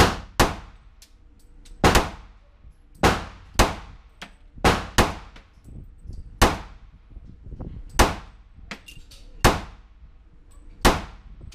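A .40 S&W semi-automatic pistol fired about ten times at an uneven pace, shots roughly one to one and a half seconds apart with a quick double near the middle. Each shot rings off the walls of an indoor range.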